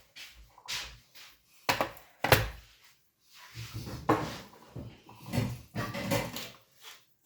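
Kitchen clatter: several sharp knocks of things being handled and set down, the loudest a little over two seconds in, then quieter handling noises.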